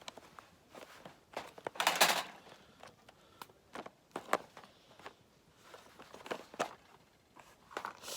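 Scattered light clicks and knocks of cooking gear and an egg being handled, with a brief louder rustle about two seconds in.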